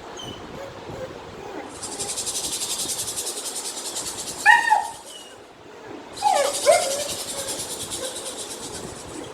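A young German Shepherd gives short high barks or yelps, once about halfway through and twice more shortly after. Two bursts of a fast-pulsing high hiss, each about two seconds long, sound around them.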